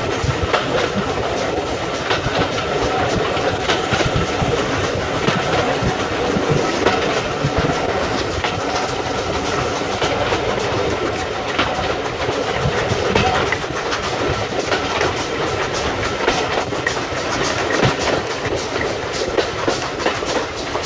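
Steam-hauled passenger train running along the line, heard from an open carriage window: the coaches' wheels clicking over the rail joints over a steady rumble and rush of air.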